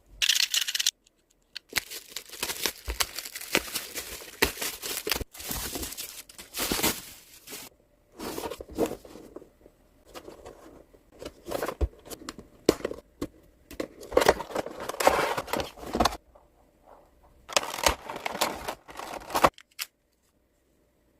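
Plastic packaging crinkling and tearing as it is handled, in irregular bursts with short pauses and a few sharp clicks, stopping shortly before the end.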